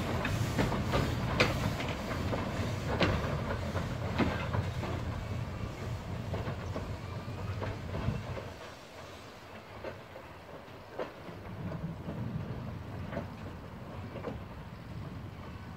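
Two-foot gauge train running past, its wheels clicking over the rail joints above a low rumble. The rumble fades away about halfway through, and a few faint clicks follow.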